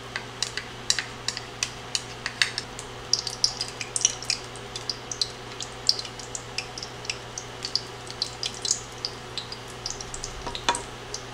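Apple fritter batter deep-frying in cooking oil heated to about 350°F, with irregular crackles and pops. Partway through, another scoop of batter goes into the oil.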